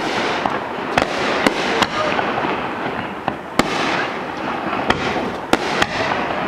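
Aerial fireworks shells bursting: about eight sharp bangs at irregular intervals, some in quick succession, over a steady noisy background.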